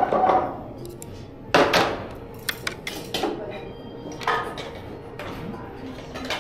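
Tableware handled during a meal: ceramic cups and bowls and chopsticks clinking and knocking on a wooden tray. There are a few separate knocks at the start, another cluster about a second and a half in, then lighter clicks spread through the rest.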